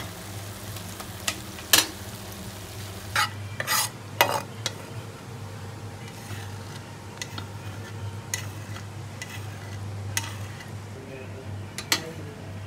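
A spatula stirring and scraping a masala paste frying in hot oil in a pan, with a faint sizzle and several sharp knocks of the spatula against the pan in the first few seconds. The paste is then scraped out of the tipped pan into a steel bowl with lighter clicks, over a steady low hum.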